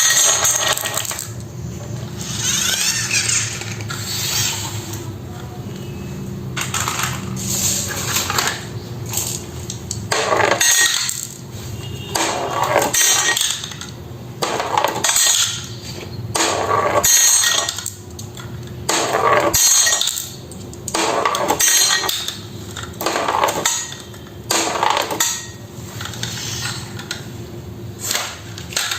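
Marbles rolling and clattering down a wooden marble run, run after run, a new rattling burst every couple of seconds.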